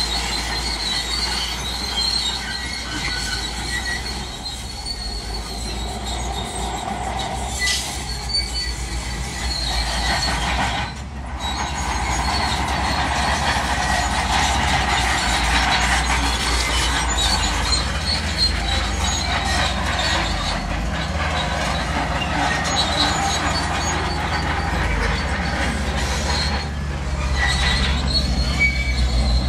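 Crawler bulldozer at work: the diesel engine runs steadily under high, thin squealing and clanking from its steel tracks. About 11 seconds in the sound drops out briefly.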